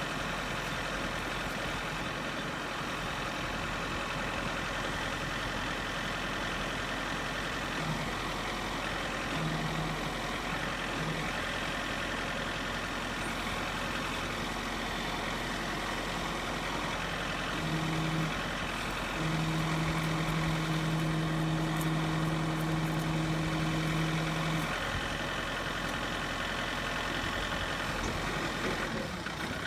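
John Deere 4066R compact tractor's diesel engine running steadily while driving a three-point post-hole auger. A steady low hum comes in briefly a few times, then holds for about five seconds in the second half, a little louder.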